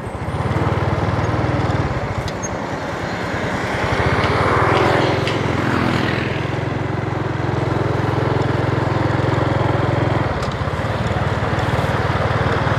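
Small motorbike engine running steadily while riding, with wind and road noise over the microphone. A louder rushing sound swells and fades around the middle.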